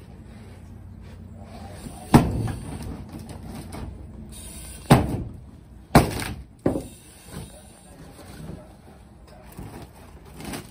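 Pick head axe chopping through an oriented strand board wall: hard, separate blows about two, five and six seconds in, a lighter one just after, then smaller knocks and splintering as the panel breaks open.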